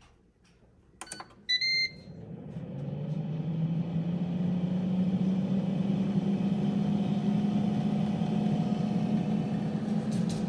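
Air fryer starting up: a click and a short high beep about a second and a half in, then its fan spinning up over a couple of seconds to a steady whirring hum.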